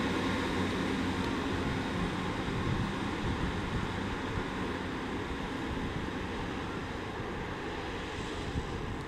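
Diesel multiple unit train, a Class 158 and a Class 150 coupled, pulling away with its diesel engines running, the sound slowly fading as it moves off.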